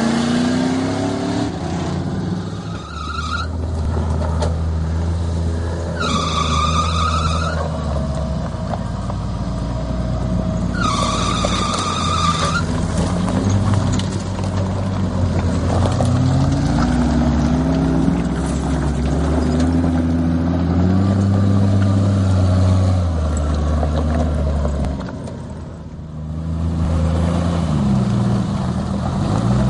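Engines of off-road 4x4 trucks revving up and down again and again as they work through rough terrain. Three short high-pitched tones cut through in the first half.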